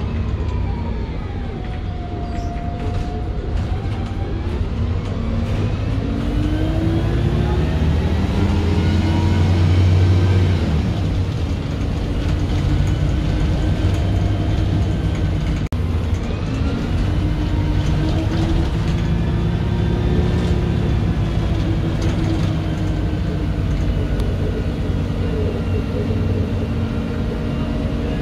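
MAN 18.240LF single-deck bus's diesel engine and driveline heard from the rear seats while under way. The engine note and transmission whine climb in pitch as the bus accelerates, fall back about ten seconds in, then climb and ease off again.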